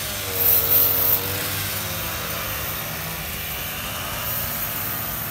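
Several two-stroke brush cutters running at cutting speed, their engine pitches wavering up and down as they work through grass. The nearest one is loudest in the first second.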